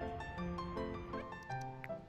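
Background music: a gentle keyboard melody of short plucked or struck notes.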